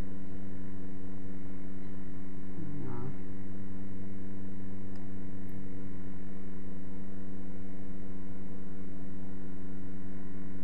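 Steady electrical hum with a stack of many overtones running under the recording, the mains buzz of the recording setup. Two faint mouse clicks come about halfway through.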